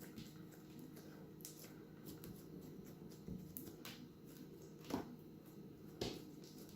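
Crunchy slime being handled and pressed, giving faint scattered crackles, with two sharper pops about a second apart near the end.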